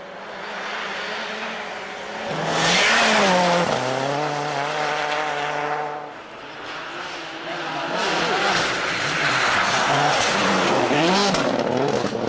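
World Rally Car engines at full throttle on a stage. A Peugeot 206 WRC approaches and passes loudly, its engine note dropping as it goes by. After a break, a Hyundai Accent WRC comes up with its engine pitch rising and falling as the driver works the throttle, with some tyre noise.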